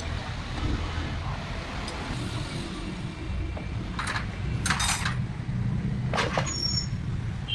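Metal parts or tools clinking and rattling three times, the middle one a short rattle, over a steady low rumble.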